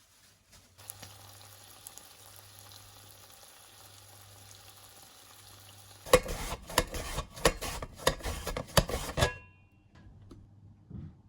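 Food sizzling as it fries in a pan, a steady hiss starting about a second in. About six seconds in, a spatula starts stirring and scraping in the pan: some three seconds of loud, rapid strokes that end with a brief metallic ring.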